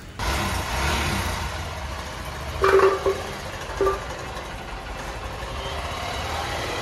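Hero XPulse single-cylinder motorcycle engine starting right away and idling steadily. Two short loud tones sound over it about three seconds in, the second one brief.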